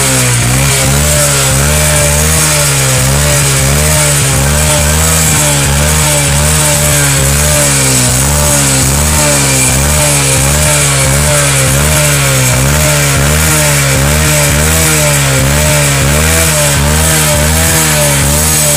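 Honda XRM motorcycle's single-cylinder four-stroke engine idling through a loud aftermarket exhaust pipe. Its pitch rises and falls in a steady, regular waver.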